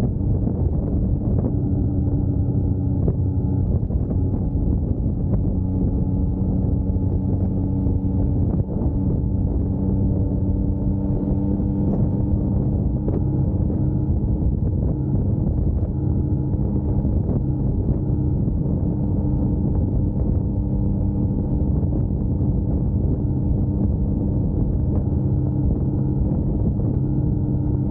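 2021 Yamaha MT-09's 890 cc inline three-cylinder engine running under way at a steady cruising speed, its note holding nearly level with a slight rise partway through, over road noise.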